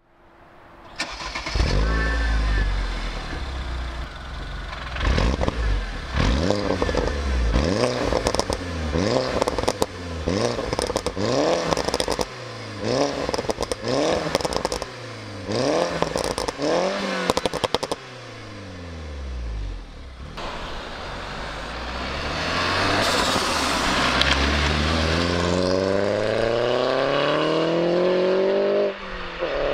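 Tuned 300 hp Mini Cooper S R56's turbocharged four-cylinder engine and exhaust. It starts about a second in and idles, is revved repeatedly, about once a second, with sharp cracks between the revs, then accelerates in one long rising pull with a gear change near the end.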